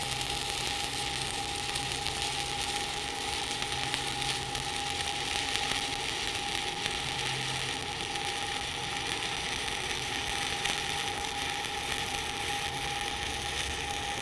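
Steady crackling sizzle of a 7018 stick-welding arc laying a fillet fill pass at about 90 amps, with a faint steady high whine beneath it.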